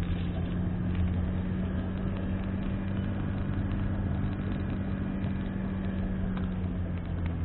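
Car engine and tyre noise heard from inside the cabin while driving: a steady low hum with a constant drone.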